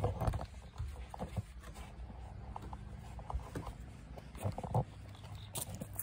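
Footsteps crossing a wooden deck and stepping down onto gravel, a run of uneven thumps and scuffs, with handling noise from the phone.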